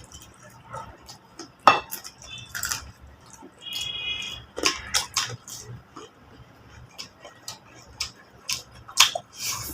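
Eating at a table: scattered clicks and knocks of plates and hands on dishes, with chewing. A brief high-pitched squeak about four seconds in.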